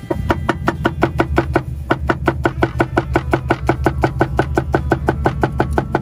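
Goat meat being pounded on a stone in fast, even knocks, about five a second.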